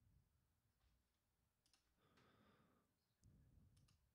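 Near silence, with a few faint computer mouse clicks.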